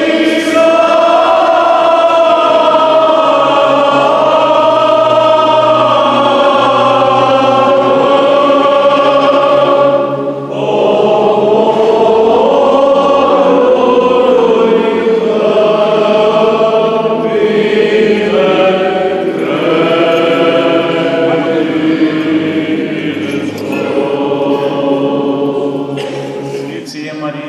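Orthodox church choir chanting a hymn of the litia over a steady low held drone note, with a brief pause about ten seconds in.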